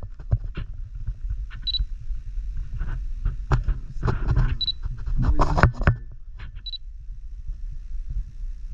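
A camera beeping briefly three times and its shutter clicking repeatedly, amid handling rustle.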